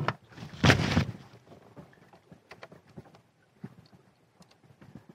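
Hands working small parts and tools on an outboard motor: a short burst of noise about a second in, then faint scattered clicks and taps.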